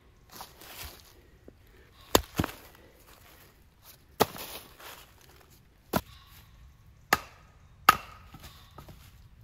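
Wood being chopped with a blade: six sharp strikes, irregularly spaced, the loudest a little after two seconds in and near the end.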